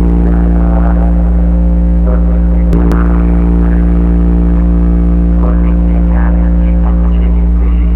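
Studiomaster 1000-watt bass speakers (subwoofers) playing a deep, steady bass drone with a buzzy stack of overtones, very loud, during a bass sound check.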